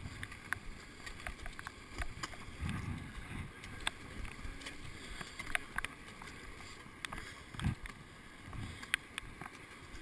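Footsteps crunching on glacier ice, with irregular sharp clicks and taps of boots and gear on the ice, over a low rumble.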